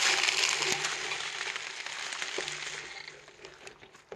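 Bicycle tyres rolling over dry fallen leaves and twigs on a dirt trail, a steady rustling crunch with a few sharp clicks that fades away over the last second or two.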